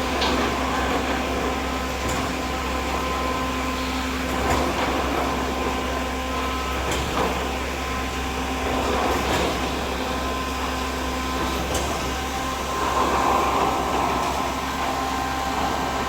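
Concrete pump machinery running steadily with a low hum, a held tone that stops about twelve seconds in, and a few sharp knocks.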